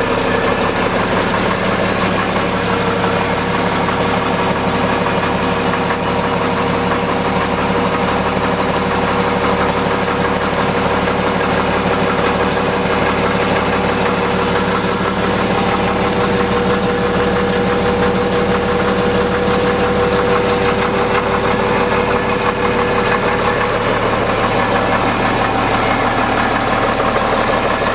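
Caterpillar D5B bulldozer's diesel engine idling steadily just after a cold start, with an even low rumbling pulse and a light diesel knock.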